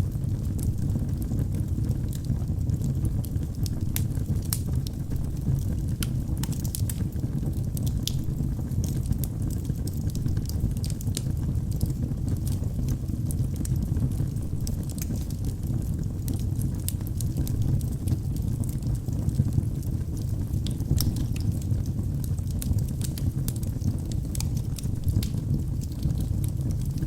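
Wood fire burning in a fireplace: a steady low rush of flame with frequent sharp crackles and pops from the burning wood throughout.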